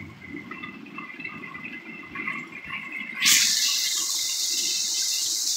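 Hurricane wind and rain, a low rumbling rush; a little over three seconds in, a loud steady hiss of rain and wind sets in suddenly and holds.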